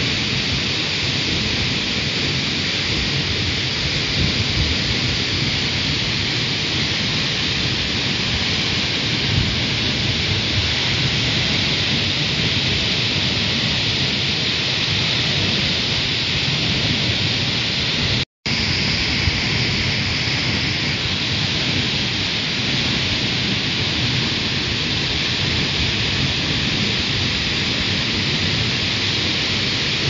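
Tall waterfall falling onto rocks: a loud, steady rushing noise with a low rumble underneath. The sound drops out for an instant about eighteen seconds in.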